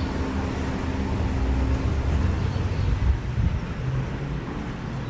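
Steady low rumble of vehicle noise with a faint steady hum.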